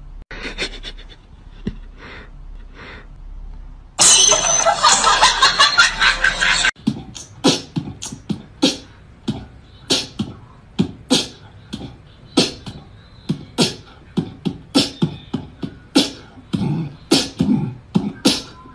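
A beatbox-style rhythm of sharp snare-like hits and low thumps, about two a second, starting about seven seconds in. It comes after a loud, dense burst of sound lasting a few seconds.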